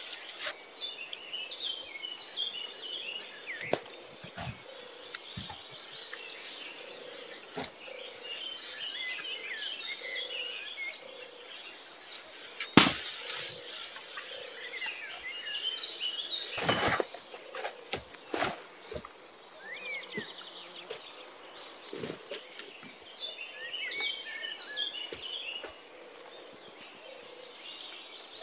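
Tropical forest ambience: a steady high insect drone, birds chirping and a low note repeating about once a second. Over it, footsteps and brushing through undergrowth, with a sharp snap or knock about 13 s in and a louder rustle about 17 s in.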